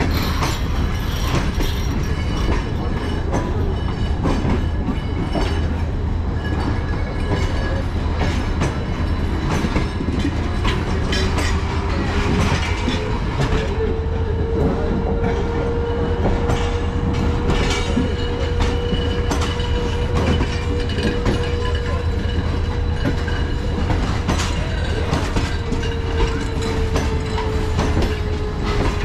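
A train rolling along the track: a steady rumble with wheels clacking over the rail joints. A long drawn tone rises slowly, holds, and sinks away near the end.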